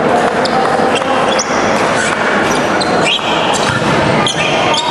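Basketball sneakers squeaking in short bursts on an indoor court floor, over a steady echoing hubbub of a gymnasium.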